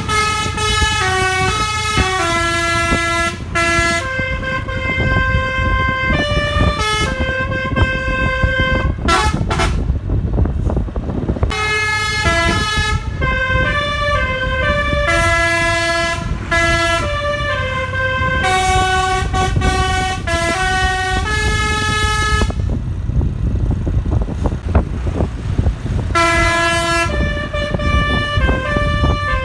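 Bus telolet basuri multi-tone air horns played by hand from a melodica-style keyboard, sounding a melody of held notes that step up and down, with two short breaks about a third of the way in and near the end. A low vehicle rumble runs underneath.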